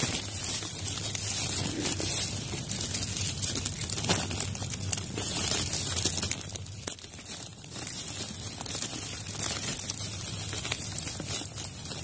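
Clear plastic bag crinkling and dry grass rustling as the bag is handled and pierced by hand with thin sharpened palm-leaf-rib sticks; an irregular stream of small crackles.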